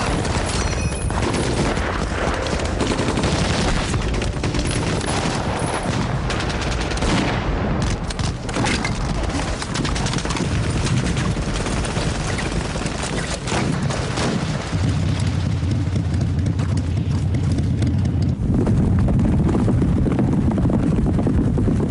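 Battle sound effects: rifle and machine-gun fire crackling densely in rapid, overlapping shots. A steady low hum joins about two-thirds of the way through.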